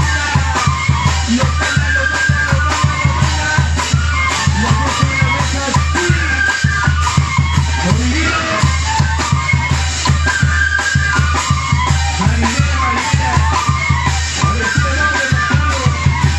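A band playing upbeat Latin dance music: a steady beat with heavy bass and a melody line over it.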